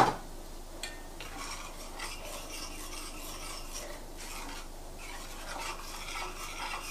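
Metal spoon stirring a thin flour gravy in a stainless-steel skillet: a soft, steady scraping and swishing. There is a sharp knock at the very start.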